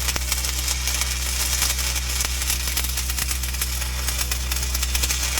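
Electric welding arc crackling and sizzling steadily while a bead is run on a steel fuel tank, over the steady low drone of a running engine.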